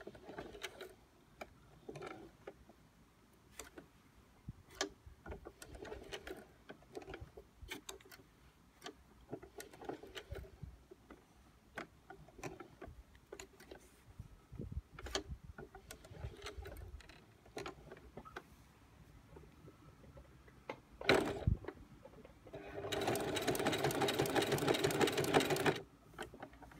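Singer Heavy Duty 4432 sewing machine stitching leather. Light scattered clicks and knocks give way to one sharp knock, and then the machine runs steadily for about three seconds near the end.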